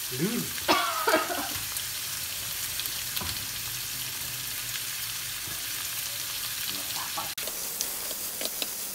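Cubes of beef shank sizzling in hot oil in a nonstick wok, a steady frying hiss. Near the end, tongs stir and turn the meat with light clicks against the pan.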